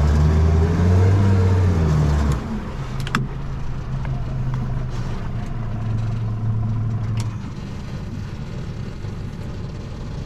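A motor engine running, heavier for the first two seconds or so, then dropping to a lower, steady run. Two short clicks come about three and seven seconds in.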